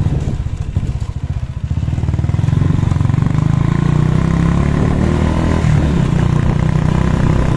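Vehicle engine running while riding over a cobblestone street, its revs and loudness rising about two seconds in.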